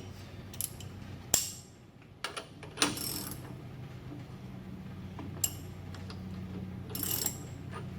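A few sharp metallic clicks and clinks from hand tools and a socket being worked on a truck's front hub nut, over a steady low hum.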